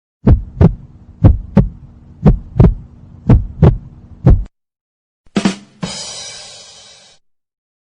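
Heartbeat sound effect: paired lub-dub thumps about once a second, four pairs and a single beat, over a steady low hum. After a short silence, a sharp burst followed by a hiss fading out over about a second and a half.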